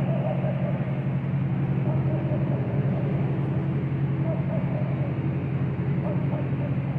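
Boat engine running steadily, a continuous low hum with no change in speed.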